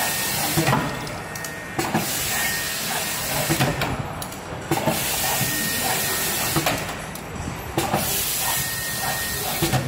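Automatic screw-driving machine at work: compressed air hisses in bursts of a second or two that start and stop sharply, with clicks and knocks from the mechanism. A brief high whine comes about three times.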